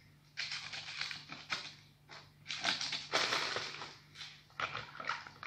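Syrup-soaked ladyfingers being handled and pressed into place around the side of a parchment-lined springform pan. Three short, irregular spells of soft handling noise.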